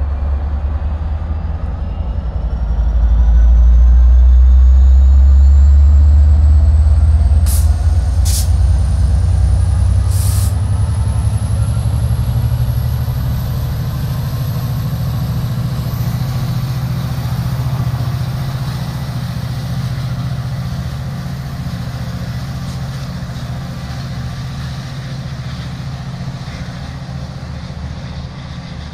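Diesel locomotive of a Metra commuter train working up as the train pulls out: a deep engine drone swells a few seconds in, then slowly fades as the locomotive moves away. A rising whine climbs steadily throughout, and three short high hisses sound about eight to ten seconds in.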